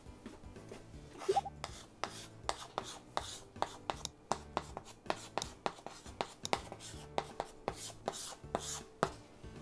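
Chalk writing on a small wooden-framed blackboard: a run of quick taps and scratching strokes, about two to three a second.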